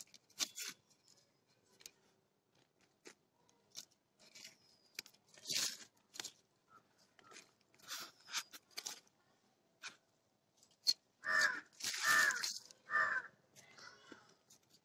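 Hands working loose potting soil and compost in a planter: scattered faint crumbly rustles and crunches. Near the end a crow caws three times, a little under a second apart, louder than the rustling.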